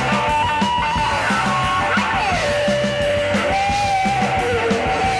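Live rock band playing an instrumental stretch of a punk/new-wave song: electric guitar holding long notes that slide up and down in pitch, over a steady drum beat and bass.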